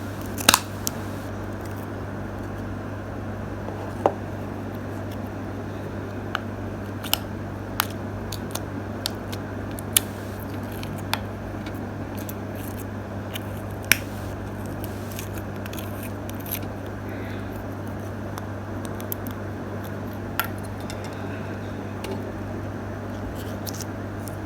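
A package being opened and handled by hand: a dozen or so scattered sharp clicks and snips. A steady low hum runs underneath.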